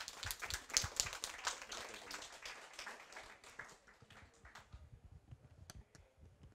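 Small audience applauding, the clapping thinning out and dying away over about five seconds.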